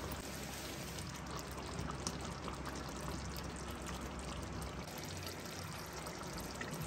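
Prawn gravy bubbling at a simmer in a pot, with a ladle stirring through it and lifting the liquid; soft, steady bubbling with faint small pops.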